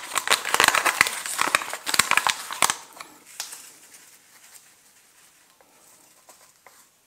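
Dry breadcrumb breading mix being poured and worked into a dish: a dense rustling crackle for about the first three seconds, fading away by about four seconds in.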